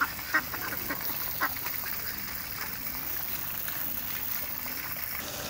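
Domestic ducks quacking in short, separate calls, most of them in the first two or three seconds, fewer after that.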